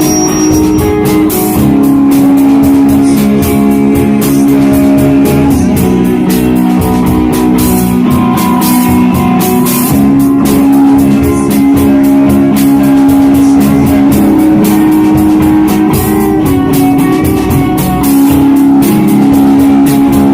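Live shoegaze rock band playing: sustained, washed-out electric guitar chords that change every few seconds over a steady drum kit with constant cymbal hits.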